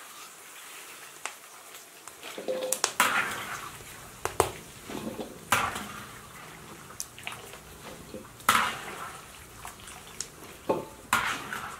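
Metal skimmer scooping boiled vegetables out of a wok and tipping them into a stainless steel basin: irregular metal clinks and a few wet splashes, with water dripping from the scoop.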